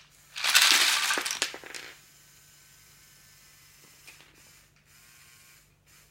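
A clatter of small hard plastic pieces lasting about a second and a half, like Lego Technic parts rattling and tumbling, followed by a few faint rasps.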